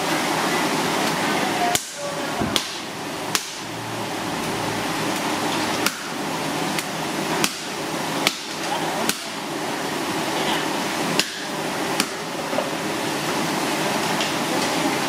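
Sharp knocks in short runs, about one every 0.8 seconds with a couple of longer pauses, over a steady noisy background.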